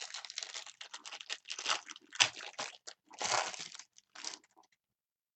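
Foil wrapper of a trading-card pack crinkling and rustling as it is handled, in a run of crackly rustles with a few sharper crackles, stopping a little before the end.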